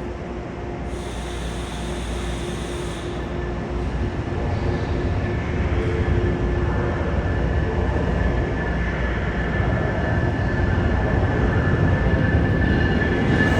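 Passenger train moving along a station platform track, a steady rumble with a steady whine that grows gradually louder. A brief hiss about a second in.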